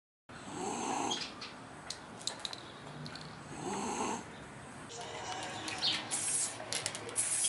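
A sleeping dog snoring, two slow breaths about three seconds apart. Near the end, a spray-paint can hisses in short bursts.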